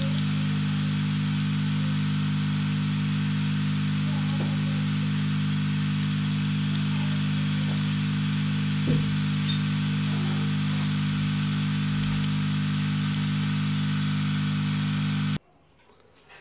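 Steady electrical hum with a hiss over it, which cuts off abruptly about fifteen seconds in.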